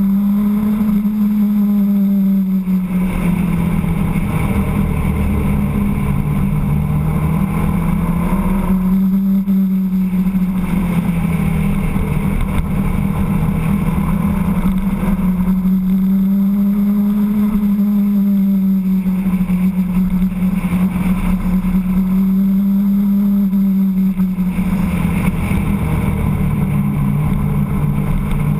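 Motorcycle engine running at road speed. Its pitch rises and falls about four times as the throttle is opened and eased through the bends.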